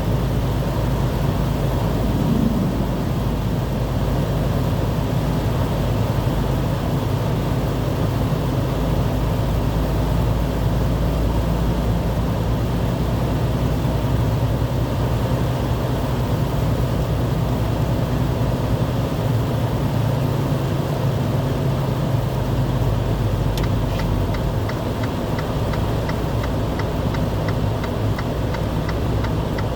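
A vehicle engine running with a steady low hum. Near the end a regular ticking of about three clicks a second starts over it.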